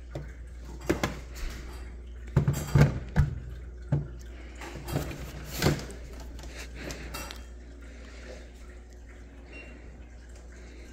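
Hard plastic clicks and knocks as an Aerogarden Bounty light panel is fitted onto its telescoping light pole, several in the first six seconds, then quieter. A low steady hum runs underneath.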